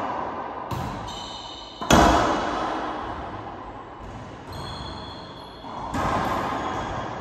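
Racquetball being played: a few sharp smacks of the ball off racquets and the court walls and floor, the loudest about two seconds in, each ringing on in the hard, echoing court.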